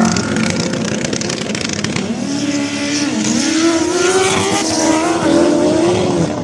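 Sport motorcycles launching at a drag strip start line and accelerating hard, engines revving up in rising pitch with short dips at gear changes.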